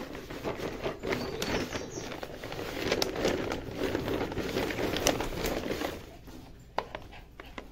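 Plastic shipping mailer bag crinkling and crackling as it is handled and opened, with many sharp crackles; it quietens about six seconds in.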